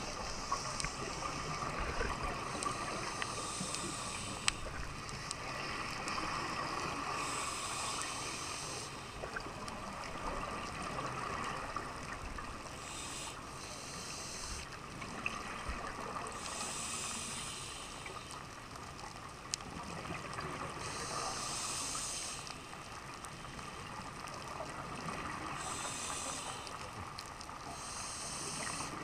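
Scuba diver breathing through a regulator underwater, picked up by a camera in an underwater housing: a hiss of air or rush of exhaled bubbles comes every few seconds over a steady background hum, with a few small clicks.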